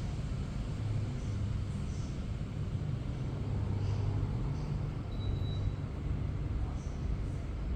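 Split air conditioner running, a steady low hum with a noisy haze over it. A few faint short high chirps and a brief thin high tone about five seconds in.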